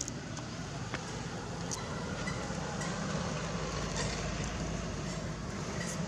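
Steady low rumble of a motor vehicle's engine, growing slightly louder toward the middle, with a few faint clicks over it.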